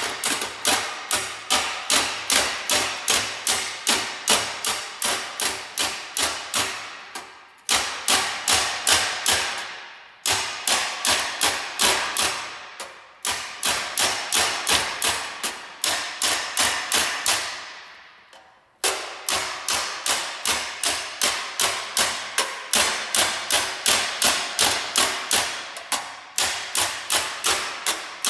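Small ball-peen hammer striking a weld seam in flat sheet metal backed by a steel dolly: fast metal-on-metal taps, about three to four a second, each with a short ring, in runs broken by brief pauses. Hammer-and-dolly planishing, stretching back out the weld and the metal around it that shrank and distorted in welding.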